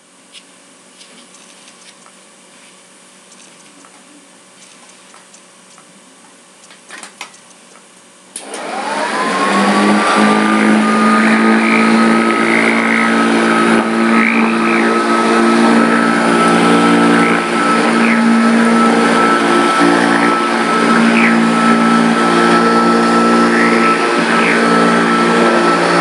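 Hoover Junior model 115 upright vacuum cleaner switched on about eight seconds in, after faint room tone and a couple of clicks. Its motor spins up with a quickly rising whine that levels off, then runs steadily with a high whine over a lower hum.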